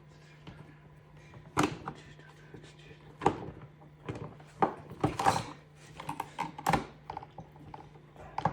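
Irregular clicks and knocks of a portable fan's plastic covers and screws being handled and fitted back together while it is reassembled, the loudest knocks between about a second and a half and seven seconds in.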